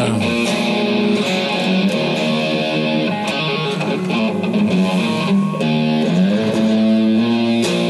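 Ibanez Iceman electric guitar being played: ringing, held chords and notes that change every second or two.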